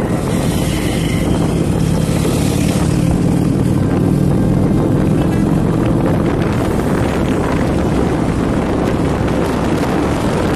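Motorcycle riding along a road: the engine running steadily under a constant rush of wind over the microphone.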